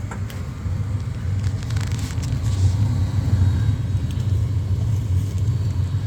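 Gas furnace running with its burners lit: a steady low rumble and hum that grows a little louder about a second and a half in.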